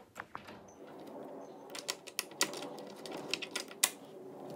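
A rapid, irregular run of sharp light clicks and taps: fingernails clicking against a hard tabletop and each other while nail stickers are pressed on.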